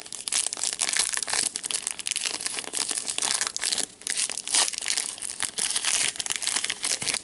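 Hockey trading cards and their pack wrapper rustling and crinkling as gloved hands sort through them, a steady run of small crackles.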